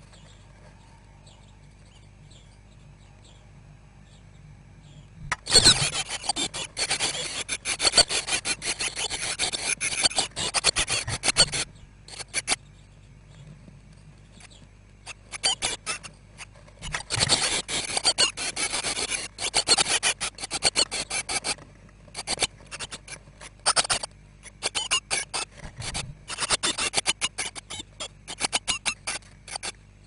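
Nearly grown blue tit nestlings scrabbling and shuffling in a wooden nest box, close to the microphone: long bursts of rapid scratchy rustling and scraping. The bursts start about five seconds in and come again repeatedly after a short pause.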